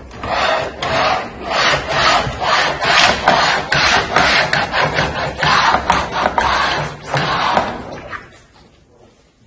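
Hand-held standing-seam folder for the lower seam profile being pushed along the edge of a metal roofing sheet, its rollers running and scraping on the sheet as they bend the edge up. A continuous scraping noise full of rapid irregular clicks, dying away about eight seconds in as the folder reaches the end of the sheet.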